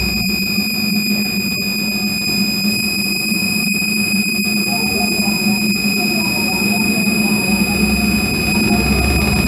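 Live electronic noise from an amplified theremin and electronics: a steady low drone under several constant high whining tones and a noisy haze, with a few brief dropouts and a faint warbling pattern in the middle range from about halfway through.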